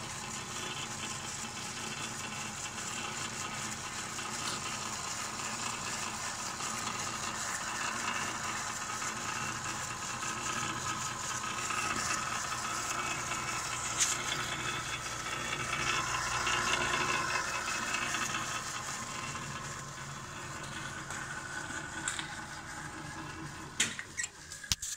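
Walker-Turner radial arm drill press running steadily under its electric motor, with a mechanical whir and rattle. Near the end a few clicks come from the push-button switch as the machine is switched off, and the running sound stops.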